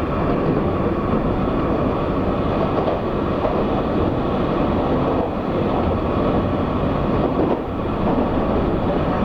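Taiwan Railways EMU800 electric multiple unit running along the line, heard from inside the passenger car: a steady, even running noise of the wheels on the rails.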